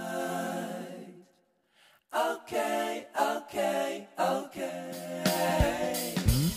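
Background music: a sung vocal melody that stops briefly about a second and a half in, then comes back in short repeated phrases.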